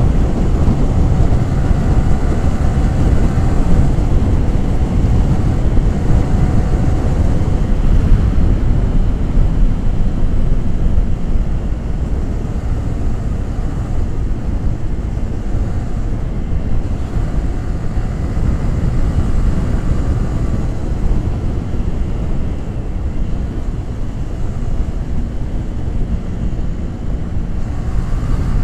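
Yamaha R15 V3's 155 cc single-cylinder engine and exhaust running while riding, heavily mixed with wind buffeting the microphone. The engine note is clearest in the first several seconds, and the sound gets somewhat quieter after about eleven seconds.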